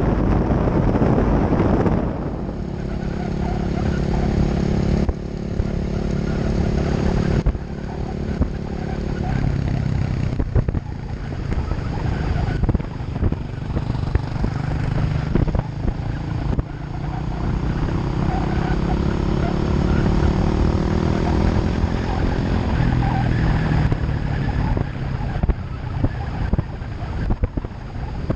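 Wind buffeting the microphone for the first couple of seconds, then a motor vehicle's engine running, its pitch rising steadily as it speeds up past the middle.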